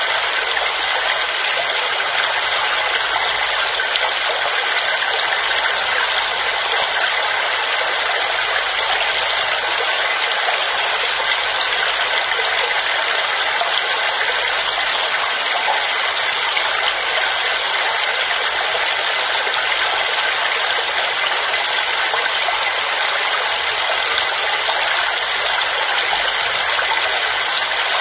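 Waterfall: a steady, unbroken rush of falling water, mostly hiss-like with little deep rumble.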